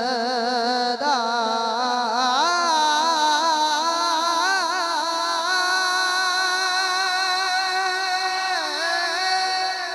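A young man's voice singing one long, drawn-out melismatic passage into a microphone over a sound system, the pitch wavering and sliding up and down on held notes, in the style of a sung Punjabi rubai recitation. The voice drops away just before the end.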